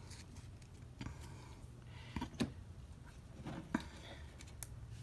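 Photocards being handled: light clicks, taps and soft rustles as cards in plastic sleeves are flipped through and one is set down on a table, over a low steady hum.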